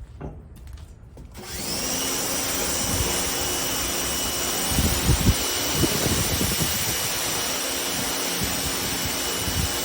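A pressure washer starts about a second and a half in and sprays steadily: the pump's whine together with the hiss of the high-pressure water jet, with some heavier low thumps of water hitting the surface a few seconds later.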